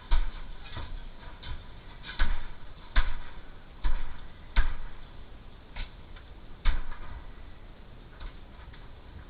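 A string of irregular knocks and thumps, roughly one a second, some louder than others, over a steady background hiss.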